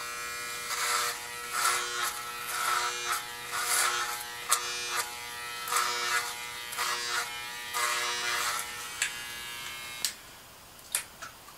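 Electric hair clippers buzzing steadily while shaving a head, with a louder hiss each time they pass through the hair, about once a second. The clippers stop about ten seconds in, followed by a few small clicks.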